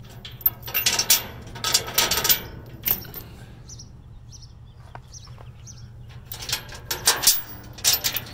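Metal chains on a steel roll-off container's rear door rattling as they are handled. The rattling comes in bursts over the first three seconds and again near the end.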